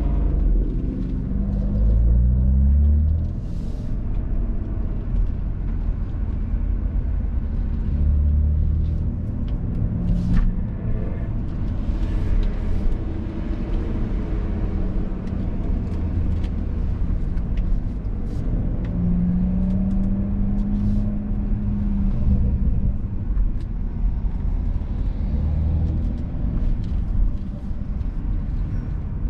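BMW M240i's turbocharged 3.0-litre inline-six under way, its pitch rising over the first few seconds as it accelerates, then running at steadier revs over a deep rumble, climbing again about twenty seconds in.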